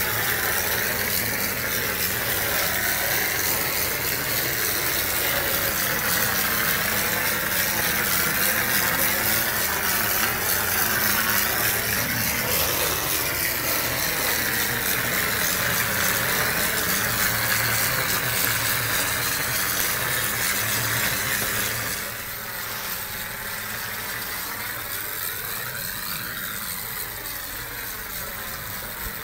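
Plaster-spraying machine running steadily, a mechanical noise with a strong hiss; it drops in level about 22 seconds in.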